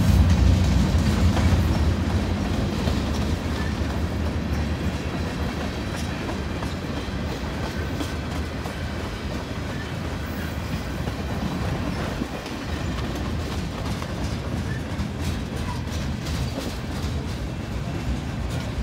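Freight train's tank cars and centerbeam flatcars rolling past: a steady low rumble of steel wheels on rail with scattered clicks as the wheels cross rail joints, a little louder in the first couple of seconds.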